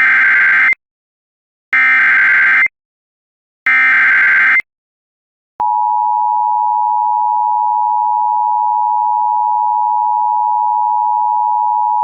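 Emergency Alert System SAME header: three one-second bursts of screeching digital data, about two seconds apart, carrying the alert's coded details. About halfway through, the steady two-tone EAS attention signal starts and holds.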